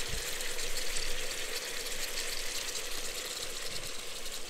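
Mountain river rushing: a steady, unbroken hiss of flowing water.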